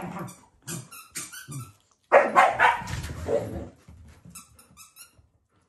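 Shiba Inu growling and barking harshly at a Labrador that has taken its dropped treat: a short burst at the start, then a longer, louder outburst about two seconds in.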